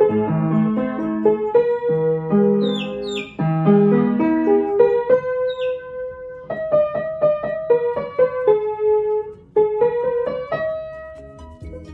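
Upright piano being played: a simple melody in the right hand over low chords in the left, ending on a held note about ten and a half seconds in.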